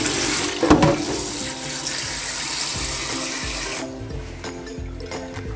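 Kitchen tap running onto beef in a pot in a stainless steel sink, with a knock about a second in; the water stops suddenly about four seconds in. Background music plays underneath throughout.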